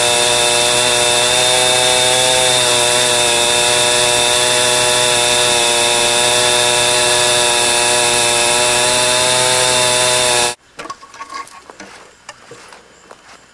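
Chainsaw running at full throttle while ripping a log lengthwise, its pitch steady. It cuts off suddenly about ten seconds in, leaving faint ticks and rustles.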